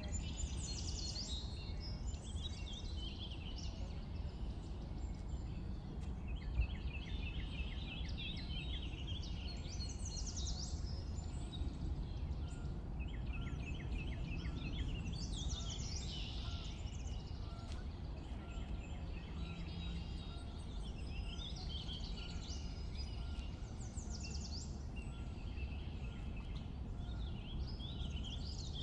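Sparrow chirping again and again, with short runs of quick repeated chirps now and then, over a steady low background rumble.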